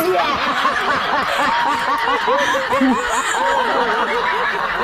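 People laughing: quick, repeated ha-ha-ha laughter from more than one voice, running without a break.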